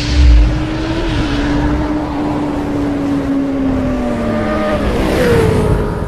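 Motorcycle engine sound effect: a held engine tone that slowly sinks in pitch, over a deep boom at the very start. About five seconds in, a rushing whoosh comes as the tone shifts.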